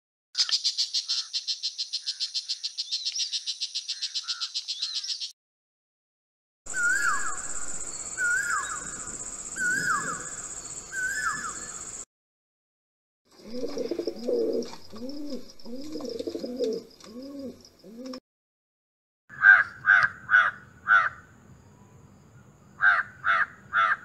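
A string of separate bird calls. First comes a harsh, fast chattering rattle of a brown shrike lasting about five seconds, then a run of repeated down-slurred notes. After that comes a series of low, rounded notes from an Asian koel, and from about two-thirds of the way in, loud harsh caws of a crow given in quick groups.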